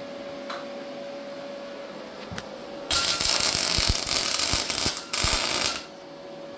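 YesWelder MIG welder tack welding a steel engine mount to the frame: the arc's crackling sizzle runs for about two seconds, breaks briefly, and comes back for a shorter second burst. On the lowered 4.5 setting it lays down a weld judged nice, with plenty of power.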